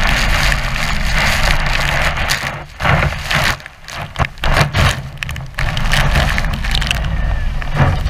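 Waterfall spray pouring down on an open tour boat: a dense, crackling rush of falling water with the boat's engine rumbling low underneath. The sound drops and cuts in and out in choppy gaps from about three to five and a half seconds in.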